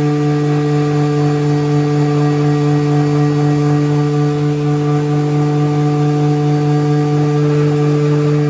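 Electric power sander running steadily on car body panels, a constant whir with a steady hum.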